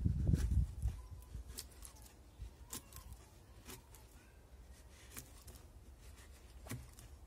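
Ganzo 7453 folding knife scraping shavings off wood: a run of short, irregular scraping strokes, with a few dull bumps in the first second.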